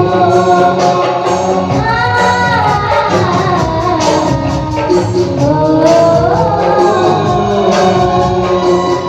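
Music: a girl singing a Hindi film song, her voice gliding through long notes over instrumental accompaniment with a steady beat.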